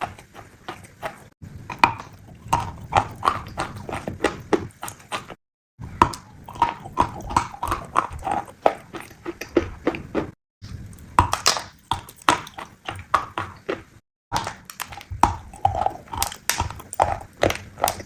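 A piglet chewing crunchy food in quick, loud crunches, about three a second. The sound cuts out briefly three or four times where short clips are spliced together.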